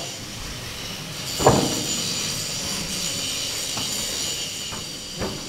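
A single heavy knock about a second and a half in, then a few light knocks near the end, as timber bearers and a steel turret basket are handled. A steady mechanical hum runs underneath.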